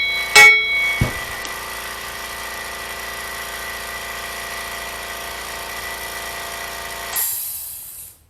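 Hammer blow on a steel wheel stud seating in the axle flange, ringing with a bright metallic ding, followed a moment later by a dull thud. Then a steady machine hum runs until about seven seconds in, when a short hiss sounds and it all cuts off.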